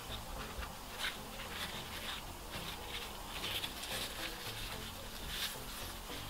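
Soft, irregular rustling and crinkling of a thin lavash flatbread as hands fold it into a wrapped envelope, in several short flurries.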